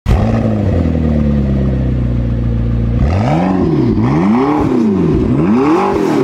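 Car engine idling steadily, then revved up and down three times in quick succession from about halfway through.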